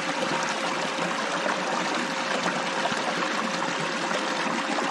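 Steady rushing of a small waterfall and creek water, with a faint, even metal detector threshold tone over it as the coil is swept through a hole for gold targets.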